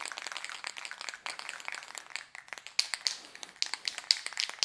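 Aerosol spray-paint can being shaken: the mixing ball rattles inside it in rapid, rhythmic clicks that grow sharper in the second half, stirring the enamel before spraying.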